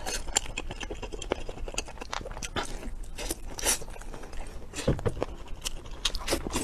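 A person chewing and biting pieces of lobster meat: irregular wet clicks and crackles of eating, with no words.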